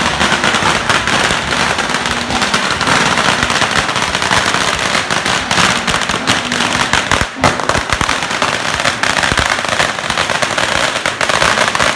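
A long string of firecrackers going off in a dense, rapid crackle of sharp bangs, with a brief gap about seven seconds in.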